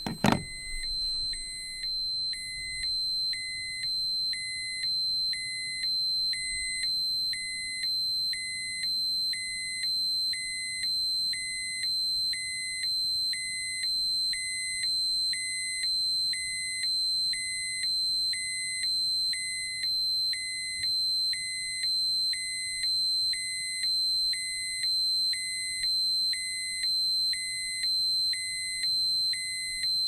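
Electronic dosimeter alarm: a steady high tone with a second beep pulsing over it about once a second, preceded by a single sharp click just after the start.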